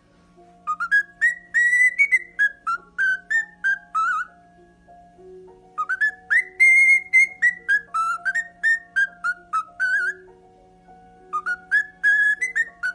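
A parrot whistling a tune in quick runs of short, sliding notes, in three phrases with brief pauses between them. Steady held low tones sound underneath.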